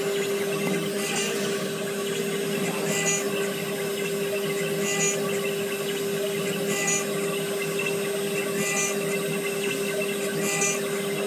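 CNC router spindle running at a steady pitch while its fine engraving bit carves a fruit kernel turned on a rotary axis, with a short scratchy cutting sound about every two seconds.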